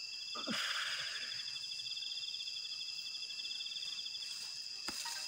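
Crickets trilling steadily in rapid fine pulses through most of the clip; the pulsing trill drops out shortly before the end. About half a second in there is a brief falling groan-like voice sound, and near the end a single sharp click.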